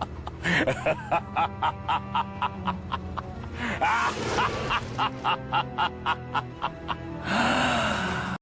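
A short music clip with a steady fast beat, about four beats a second, and a few sliding cries over it; it cuts off abruptly at the end.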